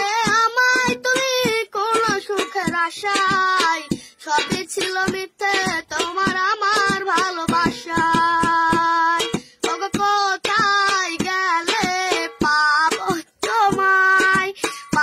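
A boy singing a Bengali song solo, with held and wavering notes, with regular sharp taps keeping time under the voice.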